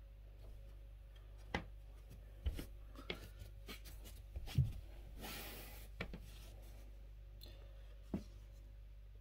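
Hands handling objects: scattered taps and clicks, a low thump near the middle, then a brief rustle, over a steady low electrical hum.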